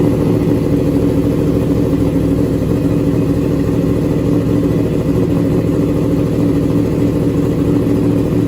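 Yamaha R1 inline-four sportbike engine idling steadily, its exhaust note low and even with no revving.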